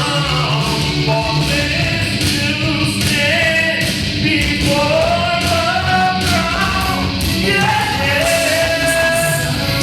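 Music with singing: a vocal melody of long held notes over a steady bass line.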